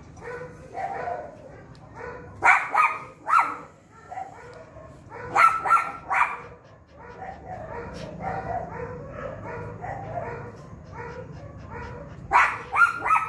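Dog barking in three short runs of two or three sharp barks, with steady whining and whimpering between them.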